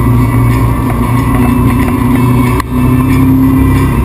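Motorboat engine running steadily at towing speed, with the rush of wake and wind over the microphone; the sound briefly drops out and resumes about two-thirds of the way through.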